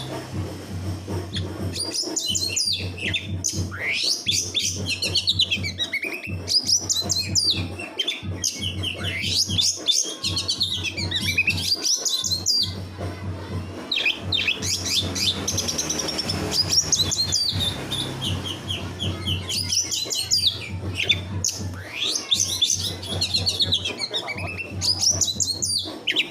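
Songbird singing dense rapid-fire trills and quick sweeping whistles: the 'tembakan' song style used as masteran for training magpie-robins. A steady low hum runs underneath.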